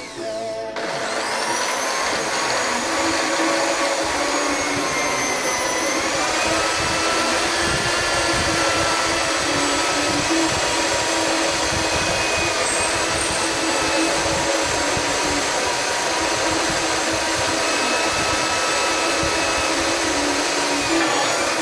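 Corded electric hand drill starting up about a second in and boring into a metal plate, its motor whining steadily at high speed; the pitch dips briefly around six seconds in as the bit loads, then settles again.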